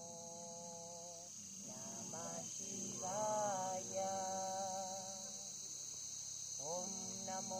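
A voice singing long held notes in slow phrases, each note sliding up into its pitch, with short pauses between phrases, over a steady high-pitched hiss.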